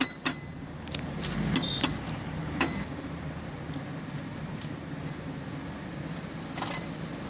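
A few scattered metallic clinks and knocks as a tractor gearbox's main shaft, with its gears fitted, is worked into place in the gearbox housing, over a steady low hum.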